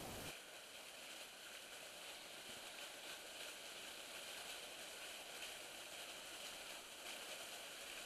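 Faint, steady trickle of water running down a wet rock face, an even hiss with no distinct drips or splashes.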